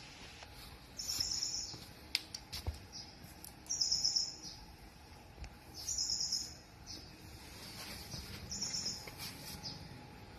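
A bird calling four times, a short high call repeated roughly every two and a half seconds, with a few faint clicks in between.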